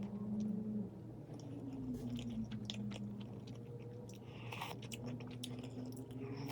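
A person chewing and biting food close to the microphone, with small crunchy, wet clicks of eating.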